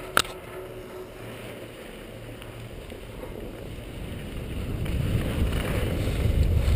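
Skis sliding over groomed snow with wind rushing over the action camera's microphone, growing louder from about four seconds in as the skier picks up speed. A single sharp click just at the start.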